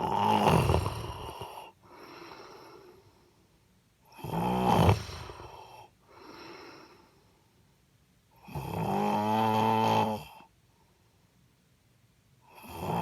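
A woman snoring in sleep: loud, buzzing snores about every four seconds, four in all, with a softer breath between each.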